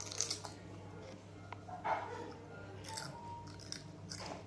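Crunching and chewing of dry snack chips, a mix of Chiki Balls and tempe chips, with separate crunches near the start and about two, three and four seconds in.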